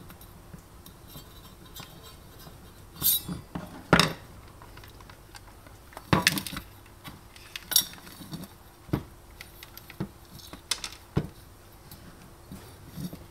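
Clinks and knocks of an egg cooker's stainless-steel heating plate and black plastic base being pulled apart by hand: a scattering of sharp clacks, the loudest about four and six seconds in.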